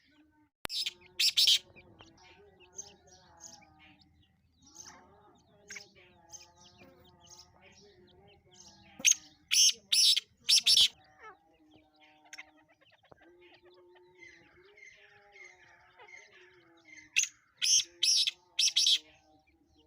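Black francolin calling: three loud bursts of harsh, rasping notes, about eight seconds apart, each burst made of two to four notes. Fainter small chirps and a lower wavering tone run underneath.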